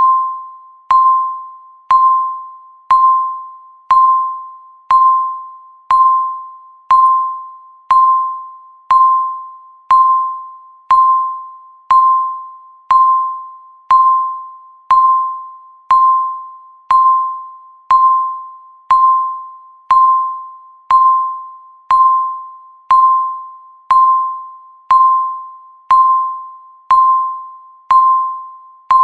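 Countdown timer's tick sound: a short, bell-like electronic tone struck once a second, each one ringing and fading away before the next, marking the seconds.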